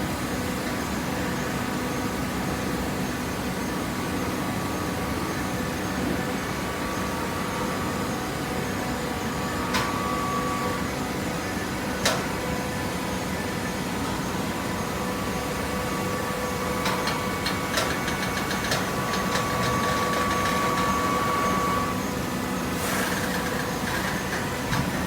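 Hydraulic cardboard baling press running: a steady motor and pump hum, with a couple of single knocks, a short rattle and a higher whine held for a few seconds later on.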